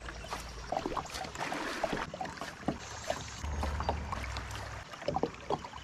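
River water lapping and splashing in small irregular slaps around the bow of a kayak, with a low wind rumble on the microphone for about a second midway through.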